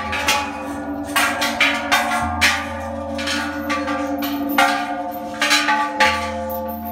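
Hanging bronze temple bells struck one after another, about two strikes a second. Each bell keeps ringing on under the next strike.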